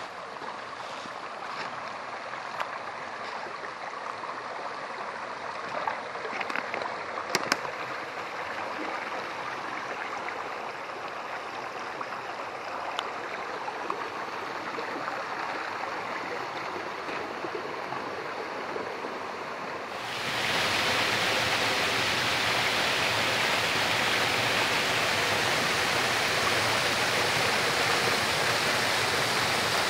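A small mountain stream running over rocks, a steady rush of water with a couple of sharp clicks about a quarter of the way in. About two-thirds of the way in the sound turns abruptly louder and fuller: water of a small cascade tumbling between boulders, close by.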